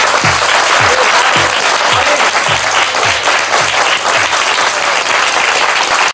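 Audience applauding loudly over the end of the song, whose electronic drum hits, each dropping in pitch, keep going about twice a second beneath the clapping and fade after about four seconds.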